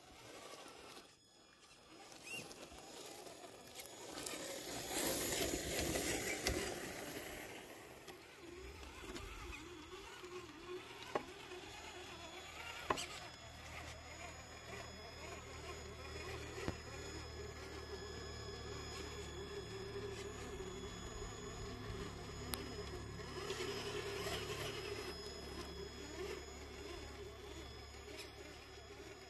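Electric drive motor and gearbox of a Traxxas TRX-4 Ford Bronco RC crawler whining as it crawls, the whine wavering with the throttle and loudest about five seconds in. A few sharp knocks are heard, likely the tyres bumping on the wooden planks.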